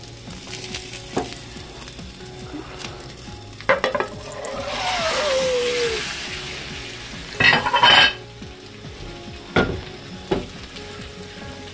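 A potato tortilla being turned over between two frying pans on a gas hob: metal pans knock and clank against each other and the burner grate, with a swell of sizzling oil in the middle. A cluster of loud, ringing clanks comes just before the halfway mark of the second half, then two more knocks near the end.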